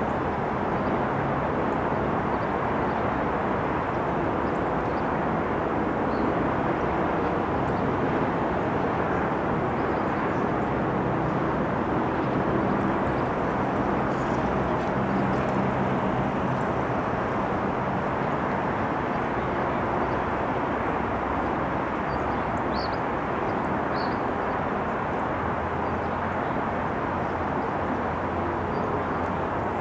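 Steady outdoor rumble of distant engines and traffic, with a low drone underneath that holds level throughout. A couple of faint high chirps come near the end.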